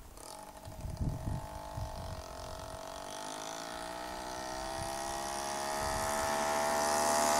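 Motorcycle engine accelerating as it comes closer, its pitch rising steadily and its sound growing louder over the last five seconds.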